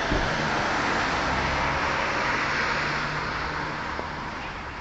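Passing road traffic: a vehicle's tyre noise and low engine hum swell, then fade toward the end.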